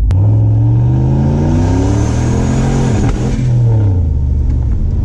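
Turbocharged LS V8 of a Chevrolet C10 pickup accelerating hard, heard from inside the cab: the revs climb steeply for about three seconds with a growing hiss, then break and fall away.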